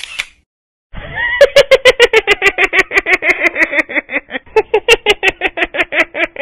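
An animated character laughing in a fast, high-pitched run of about seven pulses a second, starting about a second in after a short silence, its pitch sagging and then rising again midway.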